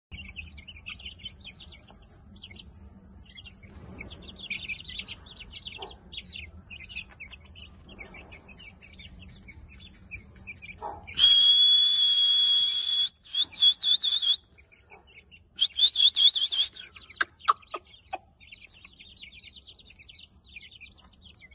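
Flock of young aseel chicks cheeping, with many short, high peeps. About halfway through the calling gets much louder and closer, with a shrill held call and then quick trilling peeps.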